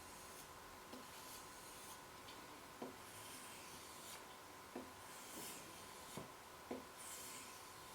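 Multi-tool knife blade being stroked across a wet whetstone with a slurry on it: faint, even rasping strokes about once a second, with a few light clicks where the blade meets the stone.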